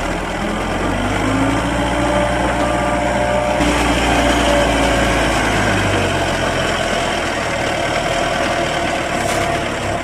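Deutz-Fahr Agrovector 25.5 telehandler's diesel engine running while it handles a wrapped bale, its pitch rising and falling in the first few seconds. The sound changes abruptly about three and a half seconds in.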